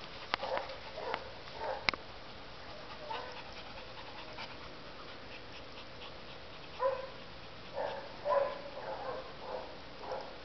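A Labrador chewing a toy and panting: a few sharp clicks in the first two seconds, then a run of soft panting breaths in the second half.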